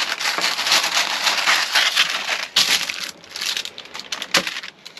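Parchment paper crinkling and rustling as it is pulled from the roll, cut with scissors and pressed into a baking pan. It dies down after about three and a half seconds, followed by a sharp click.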